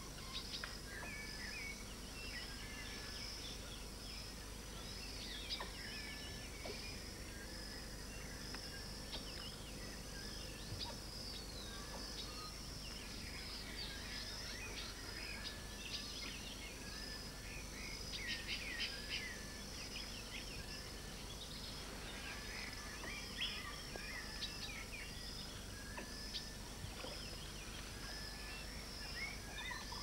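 Rainforest ambience: many birds calling and chirping in short, overlapping phrases over a steady high hum of insects.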